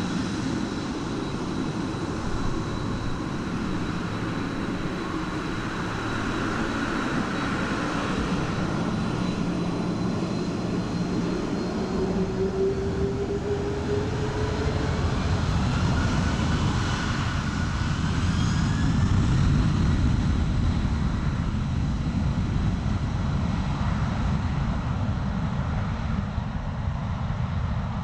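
Boeing 767-200 jet engines running as the airliner taxis on the runway, a steady engine noise. About halfway through a turbine whine rises in pitch and the noise swells a little, easing again near the end.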